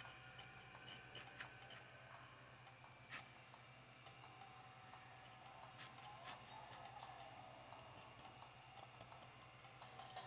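Faint, irregular clicks and scratches of a metal tool scraping and carving a soft, crumbly yellow block, over a steady low hum.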